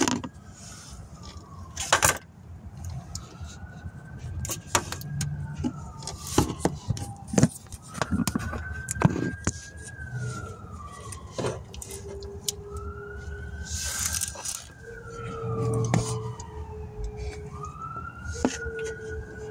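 Phone handling noise: knocks, clicks and rubbing as it is moved against hoses and metal parts in an engine bay. Under it, a wailing tone rises briefly and falls slowly, repeating about every four to five seconds.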